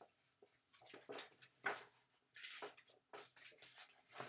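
Faint, irregular rustling of a picture book's paper pages as it is handled and flipped open.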